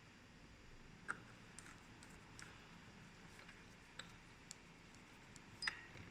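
Faint, scattered small clicks and taps, irregular rather than rhythmic, the loudest about a second in and near the end, over a low hiss: small parts being handled.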